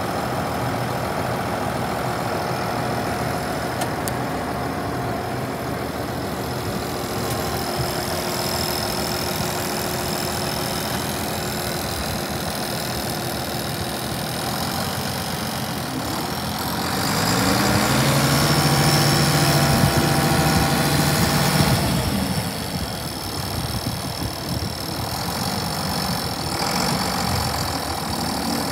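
International Harvester 1486 tractor's turbocharged six-cylinder diesel engine running steadily at low speed. A little past halfway it speeds up and runs louder for about five seconds as the tractor is driven, then drops back to a lower speed.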